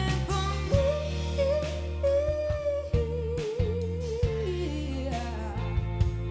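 A rock-soul band playing live: a lead vocal holds a long note with vibrato that slides down about four seconds in, over steady bass and drum hits.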